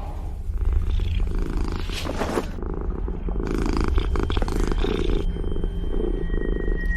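A cat purring loudly and close up, in a fast, rough, continuous pulsing.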